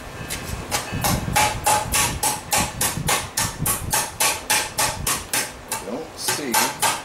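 Hand hammer striking a pan on the anvil in a quick, even run of blows, about three to four a second, each with a short metallic ring. The blows break off briefly just before the end, then start again. The smith is working the pan's rim, upsetting the edge.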